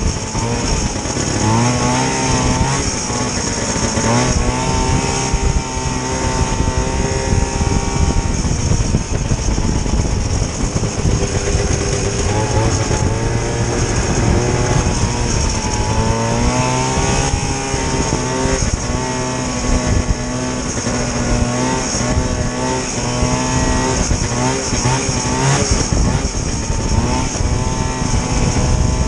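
Vintage snowmobile's two-stroke engine running under way, its pitch rising and falling over and over as the throttle is worked.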